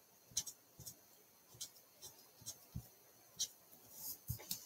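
Short, quiet scratchy strokes of a Stampin' Blends alcohol marker's nib on cardstock, coming irregularly and a little louder near the end.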